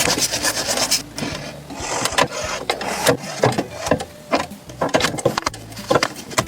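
Shoe repair work on leather: a second of fast, even rubbing strokes, then irregular scrapes and sharp clicks.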